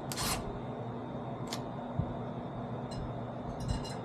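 One last rasping file stroke across a chainsaw chain's depth gauge at the very start, then a few faint light clicks over a steady low hum.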